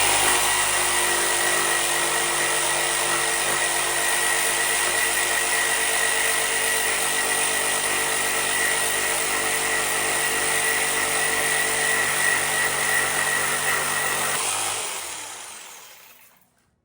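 Power cutting tool running steadily with a motor whine, cutting through a seized toilet bolt whose nut only spins, then winding down and stopping near the end.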